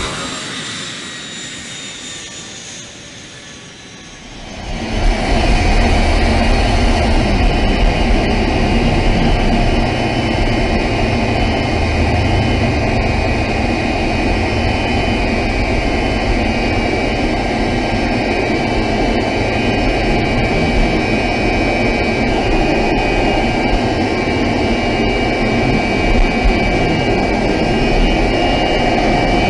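FMA IA-63 Pampa jet trainer's Honeywell TFE731 turbofan. It fades for the first few seconds as the jet taxis away. Then, about four and a half seconds in, a loud steady rush of engine and airflow comes in, heard from inside the cockpit in flight.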